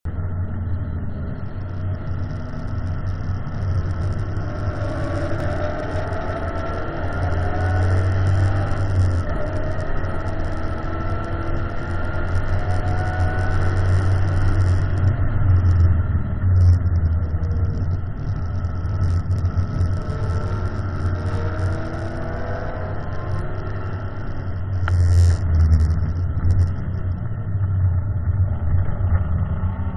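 Ford Mustang's engine heard from inside the cabin, running hard around a race circuit. Its pitch climbs in several long rises as it accelerates through the gears, over a steady low drone, with a brief louder burst about 25 seconds in.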